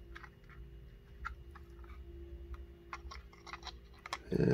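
Small faint clicks and scratches of hands working a Ring doorbell's circuit board loose from its plastic housing, over a steady electrical hum. Near the end a man's voice gives a short, loud wordless hum.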